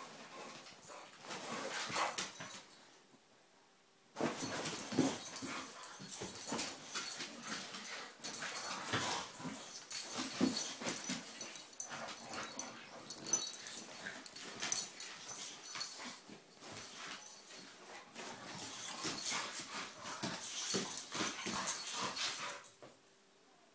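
Two dogs, a boxer and a bulldog, play-fighting: irregular dog vocalisations mixed with scuffling, with a lull about three seconds in and another near the end.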